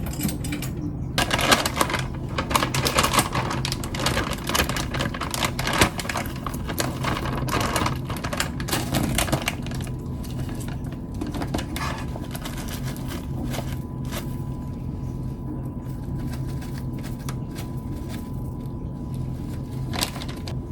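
Kitchen clatter of dishes and utensils: quick clicks and knocks, busiest in the first half and thinning out later, over a steady low hum.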